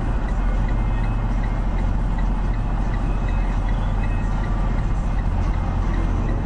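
Steady low engine and road rumble inside a moving vehicle's cab, with a faint regular ticking about three times a second.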